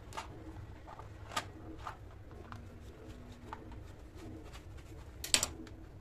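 Kitchen knife tapping and clicking on a plastic cutting board while cutting strips of fig fruit leather: scattered sharp clicks, the loudest a quick cluster of clicks about five seconds in.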